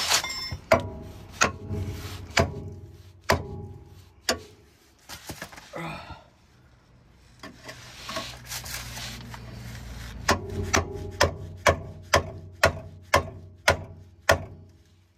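Hand ratchet cranking a bolt on a car's steering linkage: sharp metallic clicks with a ringing tone. They come about once a second at first, then in a quicker run of about two a second over the last five seconds.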